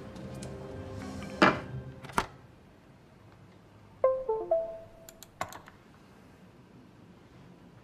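Soft background music with two sharp knocks in the first couple of seconds. The music then thins out; a short run of falling notes about four seconds in is followed by a few computer mouse clicks.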